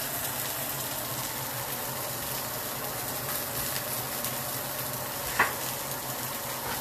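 Salmon fillets frying in a pan, a steady sizzle, with one sharp clack about five and a half seconds in.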